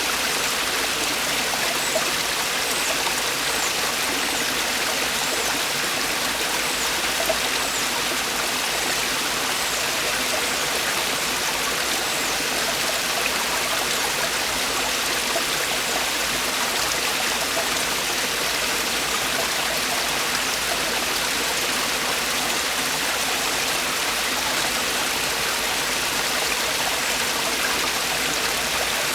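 Mountain stream water falling and splashing over rocks in a valley, a steady rushing with fine splashing.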